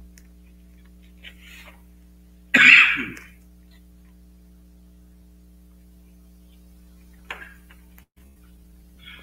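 A person clearing their throat once, about two and a half seconds in, over a steady low electrical hum; a few faint short sounds follow near the end.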